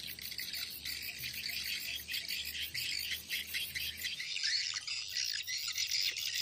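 Swiftlets chirping and twittering in a dense, continuous chorus, with a fast, even, high ticking above it that drops out briefly a little past the middle.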